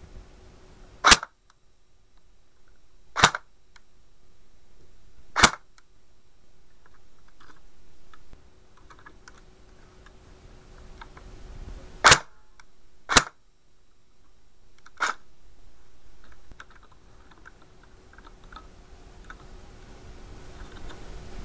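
Cyma CM031 AK-74 airsoft electric gun, modified for electric blowback, fired semi-automatically with the recoil mechanism cycling on each shot. There are six short, sharp shots: three about two seconds apart, then after a pause of several seconds three more, the last one weaker. Faint handling clicks sound between the shots.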